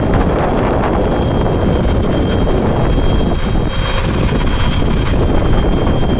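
Strong wind buffeting the microphone in a loud, uneven rumble, with a steady high-pitched whine held over it throughout.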